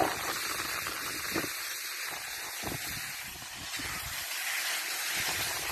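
Skis sliding and scraping over packed snow, a steady hiss, with irregular low buffeting of wind on the microphone.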